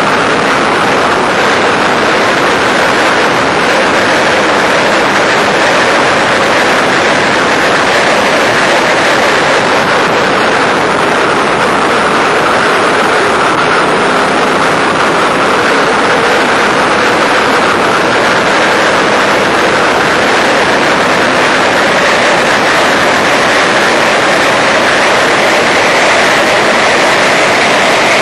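Open-cockpit Factory Five Racing Challenge race car's engine running hard on track, heard from the cockpit with loud wind rush. The engine note dips mid-way and climbs steadily over the last several seconds as the car accelerates.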